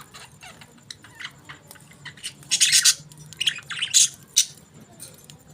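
Budgies chirping and squawking in short, sharp, high-pitched calls, loudest about halfway through and again a little later.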